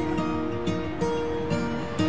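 Instrumental background music: held notes with light percussive hits about every half second.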